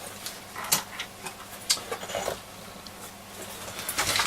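Irregular light clicks and taps of a small transistor radio's chassis and case being handled, as the chassis is worked loose and lifted out of the case. There is a brief cluster of handling noise near the end.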